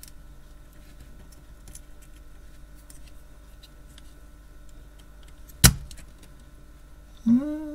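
Spring-loaded desoldering pump (solder sucker) firing once, a single sharp snap as its plunger releases to suck molten solder off a circuit-board joint. A brief hummed voice follows near the end.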